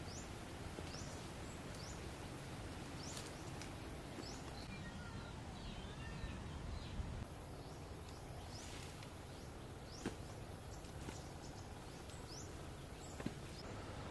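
Rural garden ambience: a steady background hiss with birds chirping over it in many short, quick calls, a few of them longer curving calls about halfway through. There are two sharp clicks, one past the middle and one near the end.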